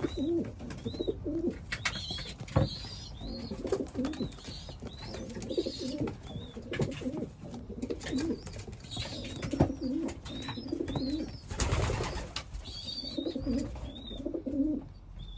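Racing pigeons cooing over and over, mixed with short high peeps and scattered sharp clicks. A brief rush of noise comes about twelve seconds in.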